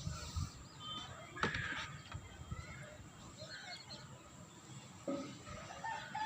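Faint bird chirps with a few soft knocks.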